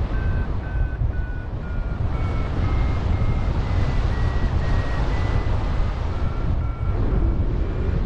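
Paragliding variometer beeping in short chirps about twice a second, its pitch rising and falling as the glider climbs in a thermal, over a loud, steady rush of wind on the microphone.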